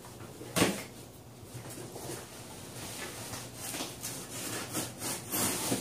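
A single knock about half a second in, then faint scraping and rubbing on the top of a cardboard shipping box as its taped seam is opened, with a few light taps.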